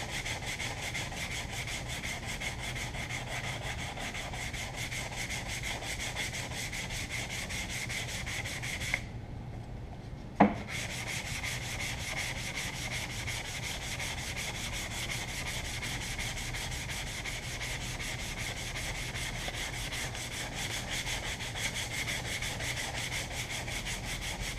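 Hand sanding with sandpaper over body filler and red spot glazing putty, a steady run of quick scratchy back-and-forth strokes. The strokes stop briefly about nine seconds in, a single sharp knock comes at about ten and a half seconds, and the sanding resumes.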